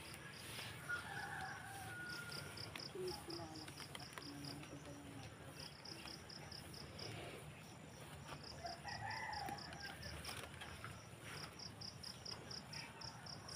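Faint rooster crowing twice, once about a second in and again about nine seconds in, over insects chirping in steady runs of quick high pulses.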